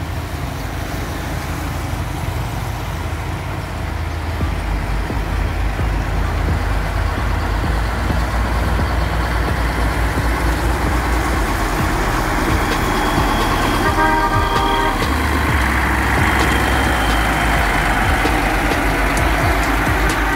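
Caterpillar 140G motor grader's six-cylinder diesel engine running steadily under load while grading, getting louder over the first several seconds as it comes closer. About two-thirds of the way through, a vehicle horn honks once for about a second.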